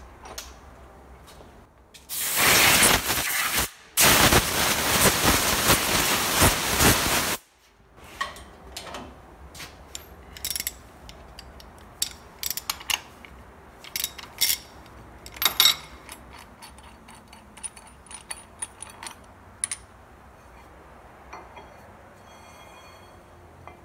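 Ratchet wrench spun quickly in two long runs of rapid clicking, backing off a hold-down bolt on the milling machine table. Then scattered clinks and knocks as the pistons are picked up and set back down on the steel table.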